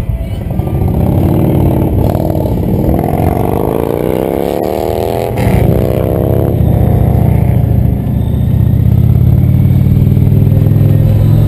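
Indian motorcycle's V-twin engine pulling away and accelerating, its pitch rising through a gear, a gear change about five seconds in, then rising again before settling to a steady cruise.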